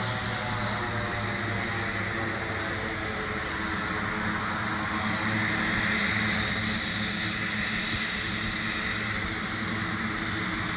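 Short SC.7 Skyvan's twin turboprop engines running as the plane rolls past: a steady propeller drone with a high turbine whine that swells a little around the middle and eases near the end.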